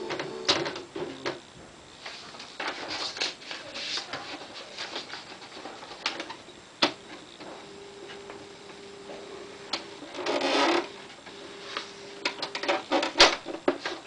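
Smith Corona SD750 electric typewriter clicking and whirring as a sheet of paper is loaded, with scattered key and mechanism clicks. A steady motor hum sounds twice in the second half, with a short buzzing whir about ten seconds in and a sharp clack near the end.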